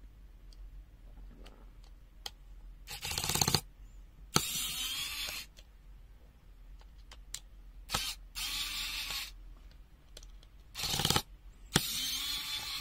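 Tool work on the plastic case of a UNI-T UT256 clamp meter as it is opened. Three rounds of a short loud burst followed by about a second of steady, noisy working sound, with light clicks of handling between them.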